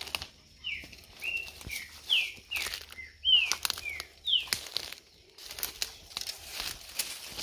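Footsteps crunching through dry leaf litter and brushing past bamboo stems. Over them a bird sings a quick series of about nine short, downward-sliding whistled notes, about two a second, ending a little past halfway.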